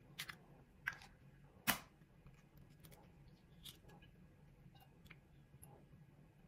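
A few sharp clicks and taps of eggshell as eggs are separated by hand over a stainless steel bowl, the loudest a little under two seconds in, followed by a few fainter ticks.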